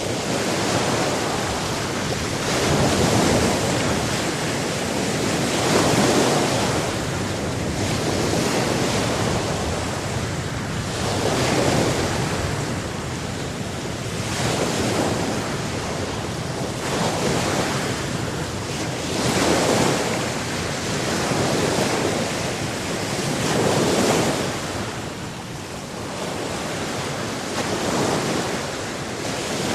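Sea surf: waves breaking and washing in one after another, each swelling and falling back every few seconds, over a continuous hiss of water.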